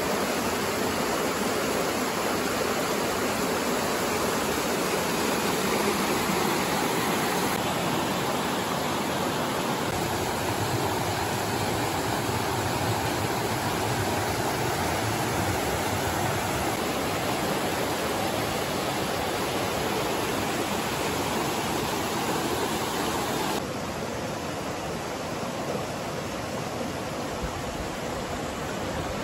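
A rocky mountain stream rushing over boulders, a steady wash of water. Its sound shifts abruptly a few times and is a little quieter for the last few seconds.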